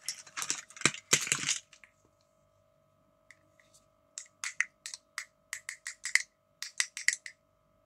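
Plastic toy doctor-set pieces clattering and rattling as they are moved about, then, after a short pause, a quick run of about a dozen sharp plastic clicks as a plastic toy stethoscope is handled.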